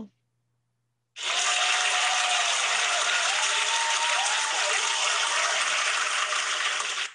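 Recorded crowd applause with a few whoops of cheering. It starts suddenly about a second in and cuts off abruptly near the end, like a sound-effect clip played after a winner's name.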